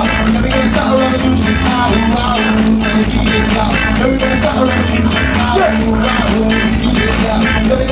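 Live band playing ska-inflected dub rock with an offbeat guitar rhythm, steady bass and a singing voice, heard loud and raw through a crowd recording.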